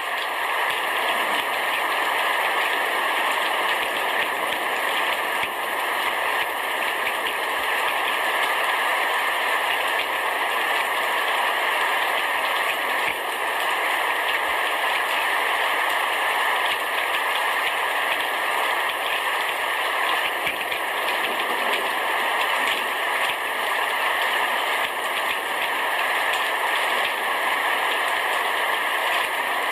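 Heavy rain shower falling steadily on a roof, a dense, even patter.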